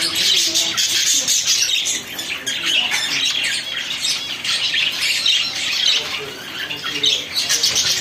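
A flock of budgerigars chattering together: dense, overlapping chirps and warbles with no pauses.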